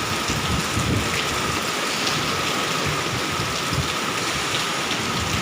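Steady, unbroken rush of floodwater pouring through the dam, with a faint steady high tone underneath.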